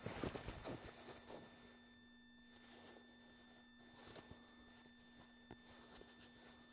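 Brief rustle of canvas boat-top fabric being handled in the first second, then near silence with a faint steady hum and one light click later on.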